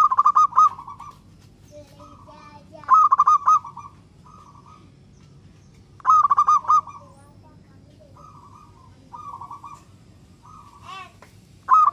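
Zebra dove (perkutut) cooing: a loud, rapid, rippling coo phrase about every three seconds, with softer coo notes in between.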